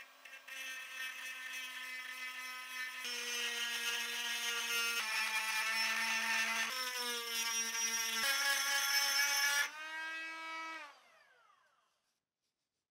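Electric power tool motor running with a steady whine whose pitch shifts to new levels several times, then switched off and winding down with a falling whine that fades out about eleven seconds in.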